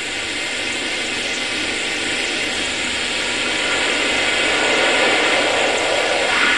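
Steady electronic hiss from an instrumental transcommunication (ITC) apparatus's loudspeaker, slowly growing louder. It is the noise carrier in which the session's voices are expected, and no voice comes through.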